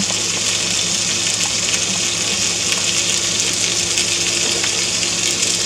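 Beef steaks searing in olive oil in a hot cast iron skillet: a steady sizzle, with a faint steady low hum underneath.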